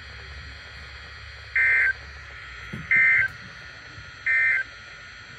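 Emergency Alert System end-of-message (EOM) data bursts: three identical short, buzzy digital bursts about a second apart, closing the flood watch alert.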